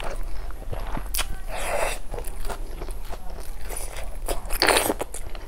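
Close-miked eating of snail curry with rice by hand: snails sucked from their shells and chewed, with small wet mouth clicks. A longer sucking sound comes about a second and a half in, and a louder one near the end.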